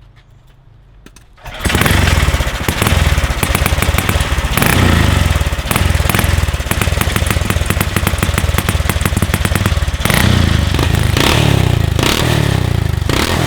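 Built stage 2 Predator 420cc single-cylinder engine on an ATV starting about a second and a half in and running loud, revved up and down, with rapid even exhaust pulses.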